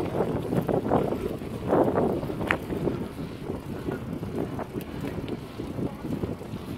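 Wind buffeting the microphone of a smartphone carried on a moving bicycle, an uneven gusty rumble. A brief high squeak comes about two and a half seconds in.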